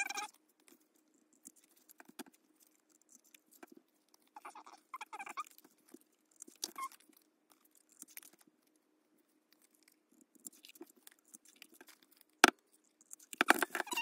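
Crop-A-Dile hand punch squeaking in short bursts as it is squeezed through greeting-card tags, with small clicks and paper handling between. Near the end, one sharp loud snap of the punch going through, then a brief metallic rattle.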